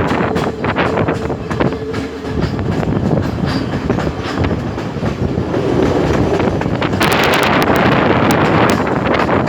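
Colombo–Badulla passenger train running on the rails: a steady rumble with wheels clicking over the rail joints. The clatter grows louder and sharper about seven seconds in.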